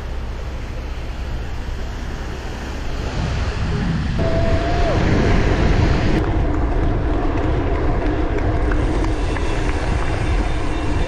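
Wind and waves washing on the shore for the first few seconds, then the steady rumble of a bicycle's tyres rolling on the road with wind noise on the microphone, louder from about four seconds in.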